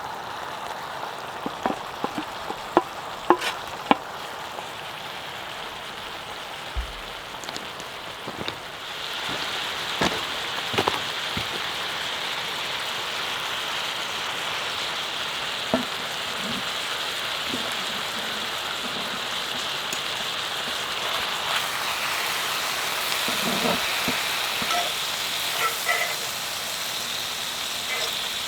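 Steak sizzling in a skillet over a propane bottle-top burner: a steady frying hiss with scattered sharp pops and clicks in the first few seconds. The sizzle grows louder about nine seconds in.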